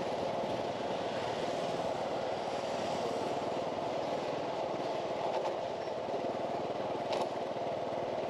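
Steady street traffic noise: the running engines of motorbikes and cars make an even hum. There is a brief click about seven seconds in.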